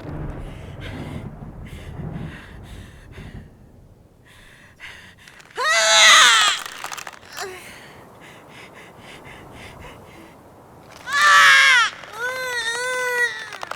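Werewolf-transformation sound effect built on a woman's voice: a low growling rumble, then repeated harsh gasping breaths broken by two loud anguished screams, ending in a wavering, drawn-out cry.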